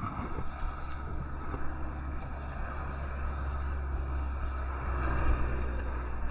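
Steady low rumble of road traffic on the highway bridge, swelling a little about five seconds in as a vehicle goes by.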